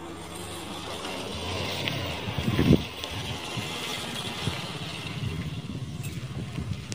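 A motorcycle engine running, swelling louder for a moment about two and a half seconds in, then settling back to a steady low running.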